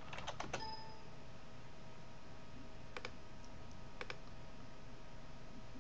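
Clicks at a computer desk: a quick run of about four clicks, then two single clicks about a second apart. Under them is a faint steady hum and hiss.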